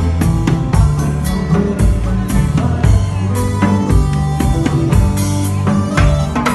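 Live band playing with a steady drum-kit beat, electric guitar and Kurzweil keyboard.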